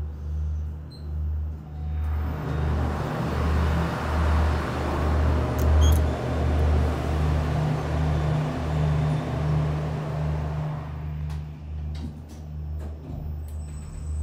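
Kleemann passenger lift standing at a floor with a steady low hum. From about two seconds in, a broad rushing noise of the station outside comes in for some nine seconds while the lift is stopped, then fades, and a few clicks follow near the end as the lift sets off downward.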